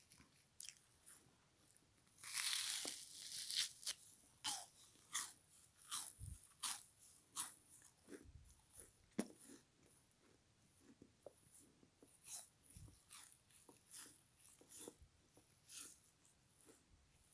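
Frozen kitchen sponge being bitten and chewed: a long, loud crunch about two seconds in, then a steady run of crisp chewing crunches, roughly one or two a second, growing quieter and sparser in the second half.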